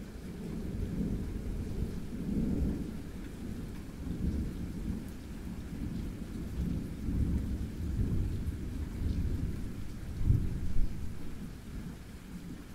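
Long rolling thunder rumbling deeply in repeated swells, with its loudest crack about ten seconds in before it dies away near the end.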